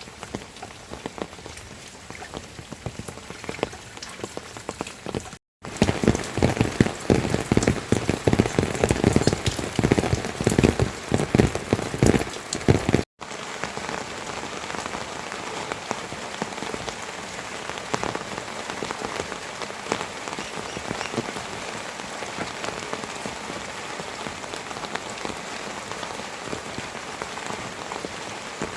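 Rain falling steadily, heard as a dense crackle of drops, in three cut-together stretches. The middle stretch, from about five seconds to about thirteen seconds in, is louder and heavier, with the drops hitting hard.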